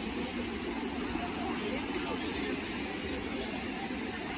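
Outdoor street ambience: a steady low rumble with a murmur of people talking at café tables.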